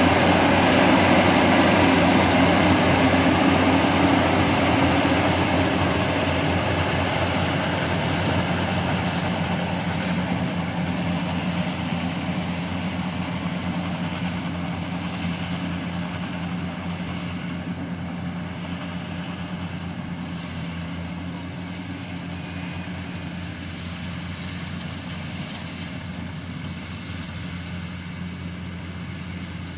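Yanmar rice combine harvester running steadily as it cuts and threshes, its diesel engine hum under a dense mechanical clatter, getting gradually quieter as the machine moves away.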